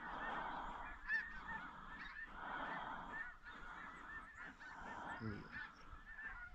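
A flock of snow geese calling: many short, high honks overlapping in a continuous chorus.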